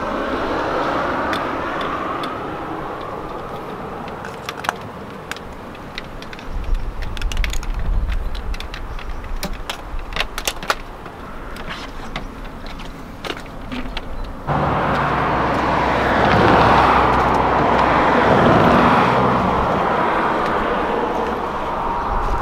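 Water running from a tap into a plastic pressure-sprayer tank, then sharp clicks and knocks as the sprayer is handled. About two-thirds of the way through the sound cuts abruptly to a car passing on a road, swelling and then fading.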